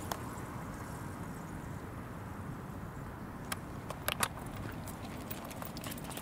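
A few sharp, light clicks from a leashed corgi walking on pavement, over a steady low rumble of outdoor background noise.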